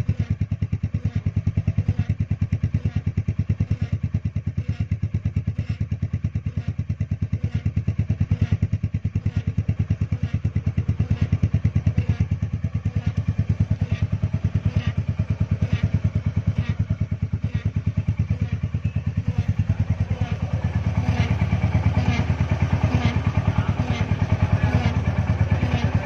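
Royal Enfield Hunter 350's single-cylinder 349 cc engine running at idle with a steady, even beat. It gets louder from about twenty seconds in.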